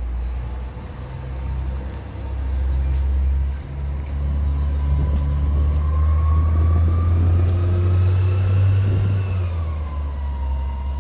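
City transit bus driving close past: a deep engine rumble with a thin whine that rises slightly in pitch, both loudest in the middle as the bus goes by. The whine drops away near the end.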